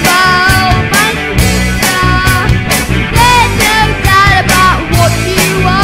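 Rock song: a voice singing over a band with a steady drum beat.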